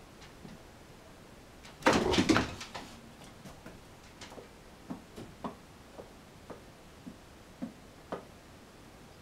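A kitten scrambling over a plastic ring binder and toys on a wooden table: a short burst of scrabbling clatter about two seconds in, then scattered light taps and clicks of its paws and claws.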